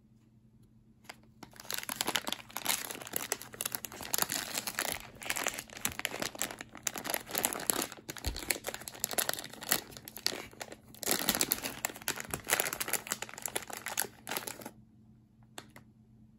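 Clear plastic zip-top cookie bag crinkling and rustling as it is handled and pulled open and a cookie is taken out. The crinkling starts about a second and a half in and stops a couple of seconds before the end.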